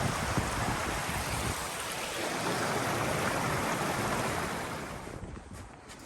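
A strong gust of wind rushing through the winter woods, with low buffeting on the microphone, dying away about five seconds in. Faint footsteps follow near the end.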